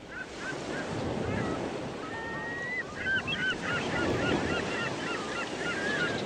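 Many birds chirping and chattering in short, rising and falling calls, with a steady rushing noise underneath.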